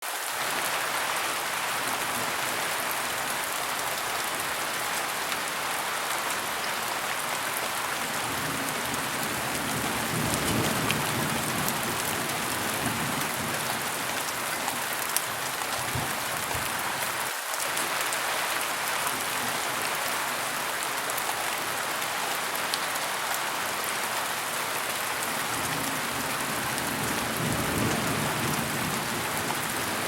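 Hard rain falling steadily onto a hard floor surface, thick with the small ticks of individual drops striking close by. A few deeper low swells rise and fade under the rain.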